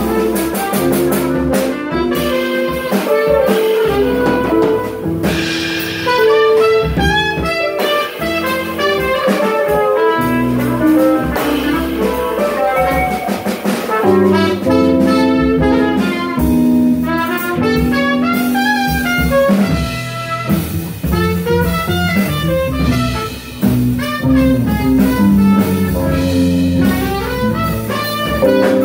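Live jazz from a trumpet, guitar and drum-kit trio with no bass: the trumpet plays a run of notes over guitar chords and drums.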